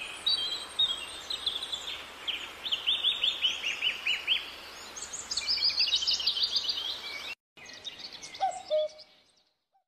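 Birds chirping in quick, repeated trills over a steady outdoor hiss. The sound cuts off abruptly about seven seconds in, returns fainter and fades out near the end.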